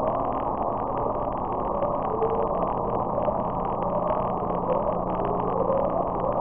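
The "Upsweep" underwater recording from NOAA's hydrophones: a series of short tones, each sweeping upward in pitch, coming roughly once a second over a steady hiss of ocean noise. Its origin is unexplained, and some attribute it to an undersea volcano.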